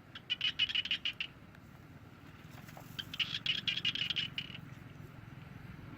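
An animal calling in two runs of rapid high chirps, one starting just after the start and a second, longer one about two and a half seconds in.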